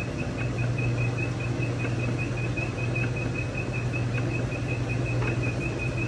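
Steady low background hum with a faint, steady high-pitched whine, and a few faint clicks from the washer's Start button being pressed to cycle through its stored fault codes.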